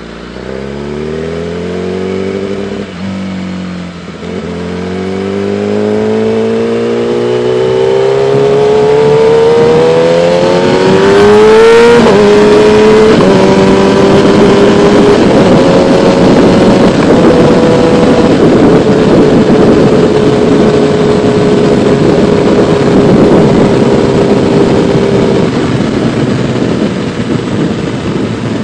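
Kawasaki ZX-10R sportbike's inline-four engine accelerating hard, its pitch climbing for about twelve seconds with brief dips near three and four seconds in, then dropping a little at a gear change and holding steady at speed. Wind rush on the helmet-mounted microphone builds as the speed rises.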